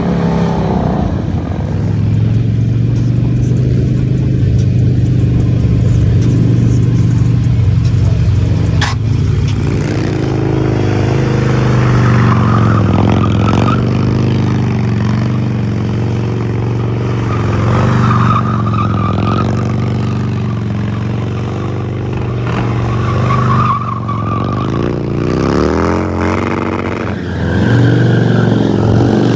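Harley-Davidson V-twin motorcycle engines held at high revs while the rear tyre spins in burnouts. The engine note holds steady for long stretches, with revs rising and falling near the end.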